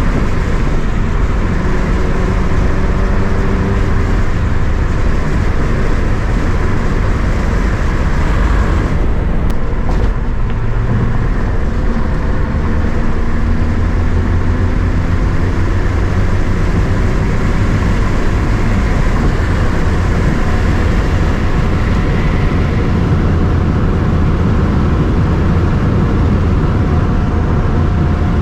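BMW inline-six car being driven: steady engine and road noise, the engine note rising and falling as it goes, with a brief lift about nine seconds in.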